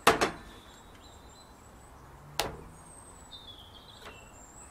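Sharp knocks of a plate and bottle being handled on a barbecue's steel side shelf while a steak is coated in olive oil: two close together at the start and one more about two and a half seconds in. A bird chirps faintly near the end.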